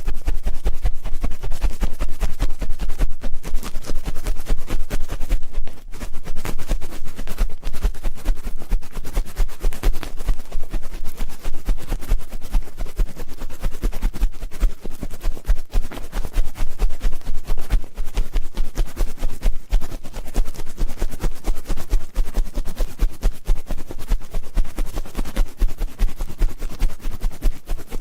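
Close-miked ear-cleaning ASMR: an ear pick scraping and rubbing in the ear of a microphone, many quick strokes in a continuous run with a brief dip about six seconds in.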